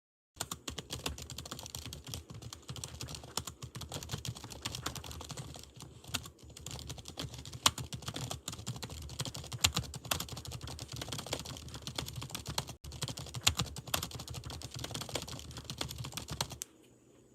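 Dense, irregular clicking and crackling over a low hum, cutting in abruptly, with a few louder sharp clicks. Near the end it drops to a faint steady tone before stopping.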